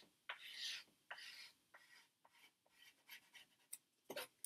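Faint scratchy strokes of a chalk pastel rubbed over paper, followed near the end by a few light clicks as a pastel stick is set down at the pastel tray.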